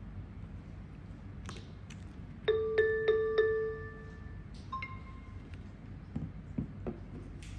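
A short electronic chime: four quick bell-like notes that ring on briefly, then a fainter two-note tone about a second later. Soft clicks and taps come before and after it.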